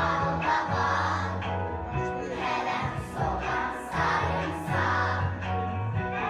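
A song: several voices singing over backing music with a bass line that moves from note to note.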